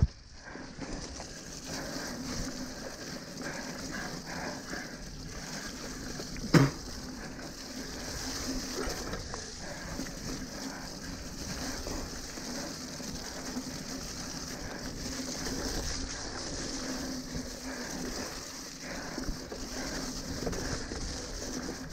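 A mountain bike rolling fast down a wet, muddy forest trail: a steady rattle and hiss of tyres and frame over the sloppy ground, with one sharp knock about six and a half seconds in.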